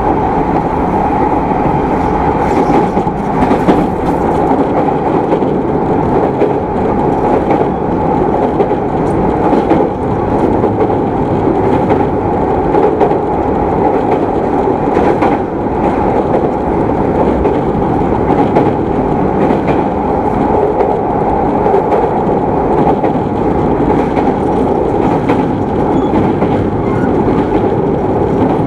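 Running noise of an equipment-renewed E217 series electric train heard aboard motor car MoHa E216-2020, cruising at steady speed. There is a steady rumble and hum of wheels and traction gear on the rails, with a few sharp clicks over rail joints.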